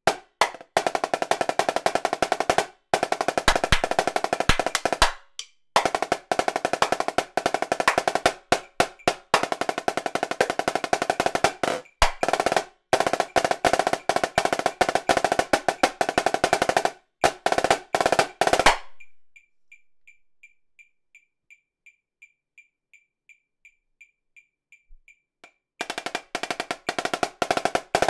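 Marching snare drum played with sticks in fast rolls and rudiment patterns over a metronome clicking at 168 beats a minute. The drumming stops for about six seconds, leaving only the click, then starts again near the end.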